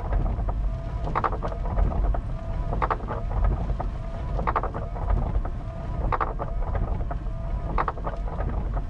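Truck windshield wipers sweeping across a rain-soaked windshield about once every second and a half. Each pass is a brief rubbing swish, over a steady low rumble of heavy rain on the cab.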